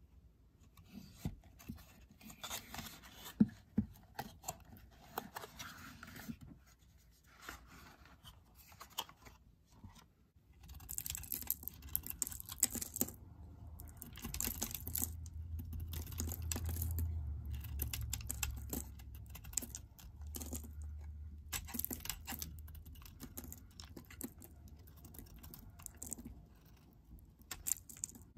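Cardboard soap box being handled and opened, with scattered scratchy clicks, then from about ten seconds in a snap-off utility knife blade scraping and shaving a bar of speckled exfoliating soap in quick repeated strokes, the soap coming away in crumbly curls.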